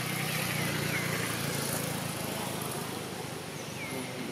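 A motor vehicle engine gives a steady low hum that fades away over the first two seconds or so. Several short, high, falling chirps sound over it.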